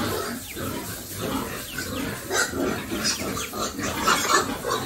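A crowd of pigs grunting and squealing over one another in a pen, in short irregular calls, loudest about four seconds in.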